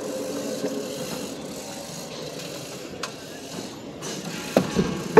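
Steady hum of street traffic and vehicle engines, with a sharp click about three seconds in and a few knocks near the end.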